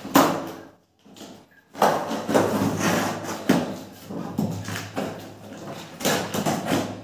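Packing tape being torn off the top seam of a cardboard carton, in several long tearing pulls with short pauses between them, over a steady low hum.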